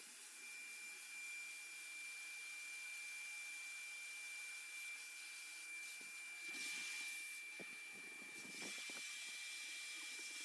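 Small electric balloon pump running steadily with a faint steady whine as it inflates a large latex balloon, with a few soft rubs of hands on the latex past the middle.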